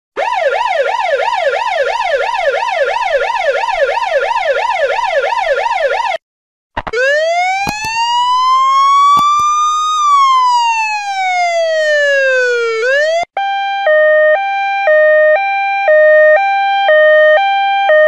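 Emergency vehicle sirens in three patterns. First a fast yelp sweeps up and down about three times a second. After a brief break comes a single slow wail that rises and then falls. About two-thirds of the way in it changes to a two-tone hi-lo alternating about once a second.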